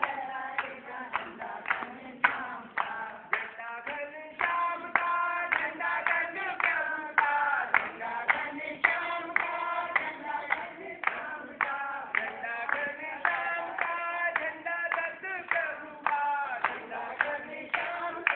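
Voices singing together in chorus, with sharp, regular beats about twice a second.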